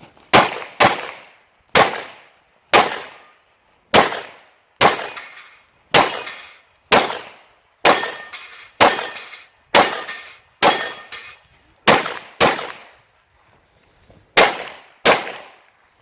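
Pistol fired in a string of about seventeen shots, mostly a second or less apart with some quick doubles, each shot trailing off in echo.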